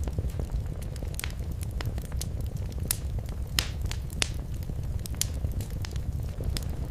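Wood fire crackling in a fireplace: a steady low rumble of flames with frequent irregular sharp snaps and pops, a few louder pops around the middle.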